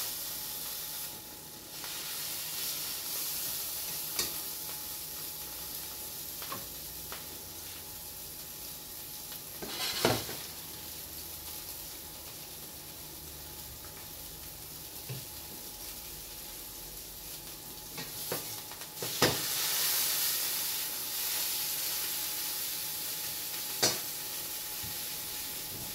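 Beef fillet and sliced mushrooms frying in oil in two pans, a steady sizzle that grows louder about two thirds of the way through. Metal utensils knock against the pans a few times, loudest about ten seconds in and again just before the sizzle swells.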